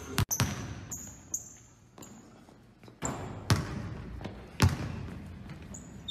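Basketball thudding on a hardwood gym floor and into hands, a handful of sharp hits ringing in the large hall, the loudest about four and a half seconds in. Short high sneaker squeaks between them.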